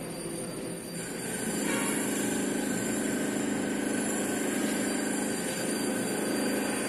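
Board duster scrubbing back and forth across a whiteboard as the writing is wiped off, a steady rubbing noise that grows louder about a second and a half in.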